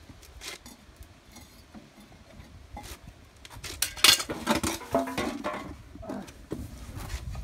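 Metal tongs and hot raku-fired ceramic pieces clinking and clanking against a metal bin as the pieces are dropped into sawdust for post-firing reduction. Scattered knocks come first, then a burst of loud clattering with some ringing about four seconds in.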